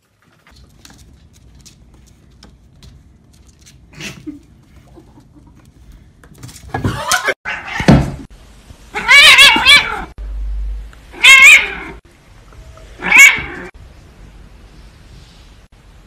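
A cat meowing loudly: four or five long, wavering meows, beginning a little before halfway through.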